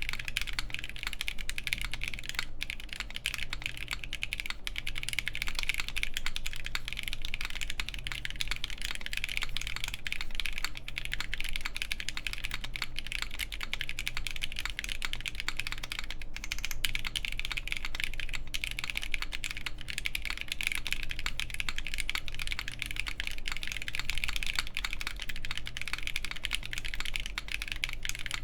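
Continuous typing on a Gray Studio BD60 gasket-mount mechanical keyboard with lubed Haimu Pastel Peach linear switches, an FR4 plate and GMK keycaps: a dense, steady stream of keystrokes.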